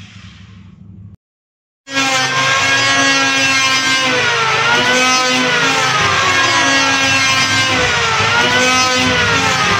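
Electric wood planer running with a loud motor whine. It starts abruptly about two seconds in after a brief silence, and its pitch dips and comes back up twice.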